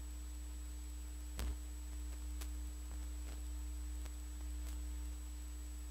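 Cassette-deck keys of a Hitachi TRK-8240RM boombox clicking as they are pressed: one sharp click about a second and a half in, then several lighter clicks, over a steady electrical hum. The set is still giving no sound from its speakers, the fault under repair.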